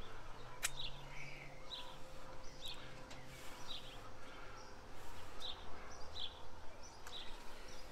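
A small bird chirping again and again, short calls about once or twice a second, over a faint low drone.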